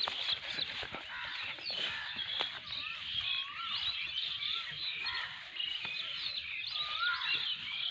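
Many birds chirping together, with a separate whistled call that rises and falls, repeated several times in the middle and once more near the end.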